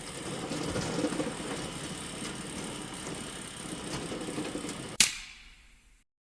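Steady rustling handling noise with scattered small clicks, then one sharp, loud click about five seconds in that rings briefly and dies away.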